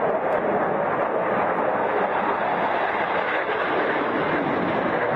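Steady jet noise from a J-10 fighter jet's single engine as it flies overhead.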